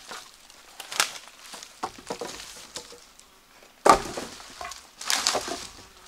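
Dry wood snapping and crunching, with a sharp crack about a second in and a heavier knock about four seconds in, the loudest moment, followed by a short stretch of crunching.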